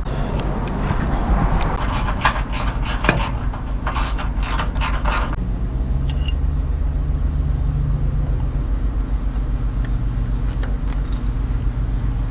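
Hand work under the truck refitting the steel skid plate: a run of sharp metallic clicks and scrapes for about three seconds, then a steady low rumble.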